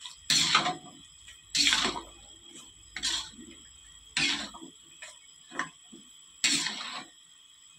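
Metal spatula stirring cabbage and carrot in coconut-milk broth in a wok: six sweeping strokes, about one every second and a bit, each a short scrape and slosh against the pan.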